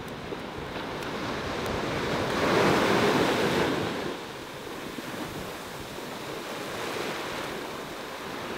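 Heavy surf breaking on the beach: a wave crashes and washes up, loudest about three seconds in, then falls off sharply a second later, with a smaller surge near the end. Wind buffets the microphone.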